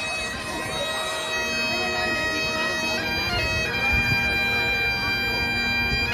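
Bagpipes playing a tune of long held notes over a steady drone.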